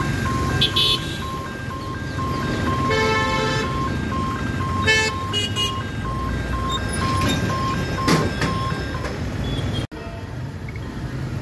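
Level-crossing warning beeper sounding in a steady, evenly repeating pattern while the boom barrier lowers, stopping about nine seconds in. Vehicle horns honk briefly a couple of times over traffic noise.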